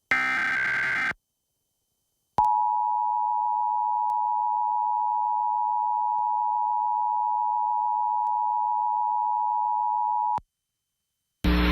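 Emergency Alert System test signal: a brief burst of warbling SAME data tones, the last of the digital header, then after a short pause the EAS two-tone attention signal (853 and 960 Hz sounding together), a steady blare for about eight seconds that cuts off sharply. Just before the end a loud hum and hiss comes in.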